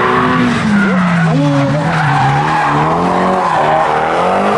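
Drift car's engine revving hard, its pitch rising and falling repeatedly as the car slides sideways through a corner, with the rear tyres spinning and skidding across the tarmac.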